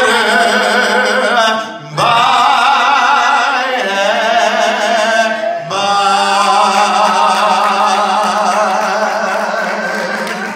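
A man singing slowly, holding long wavering notes in three phrases separated by short breaths.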